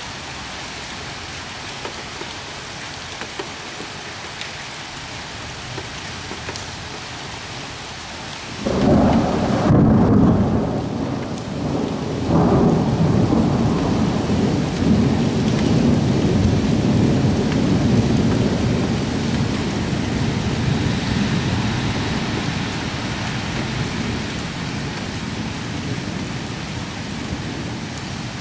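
Steady rain, then about nine seconds in thunder breaks in suddenly as a loud low rumble, surges again a few seconds later, and rolls on, slowly fading.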